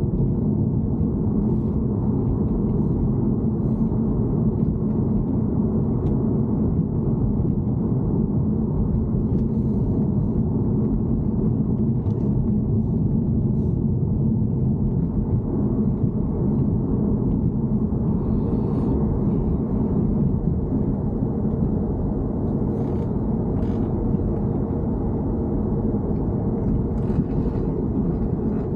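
Steady low rumble of a BMW E90 3 Series heard from inside the car, with faint scattered ticks above it.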